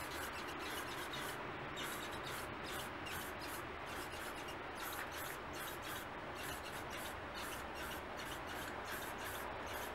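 Aerosol spray-paint can spraying, a steady hiss.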